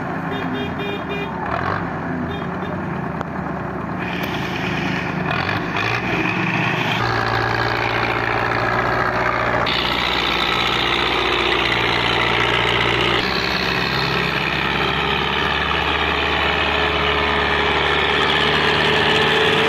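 Belarus 510 tractor's diesel engine running under load as it pulls a heavily overloaded trailer, growing louder as it comes close. Its pitch and level shift in steps a few times.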